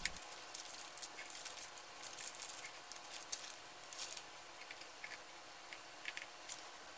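A paper pattern being peeled and picked off a plywood piece by hand: faint, irregular crackling and rustling of paper. The glue holds the paper too firmly, so it comes away in torn scraps.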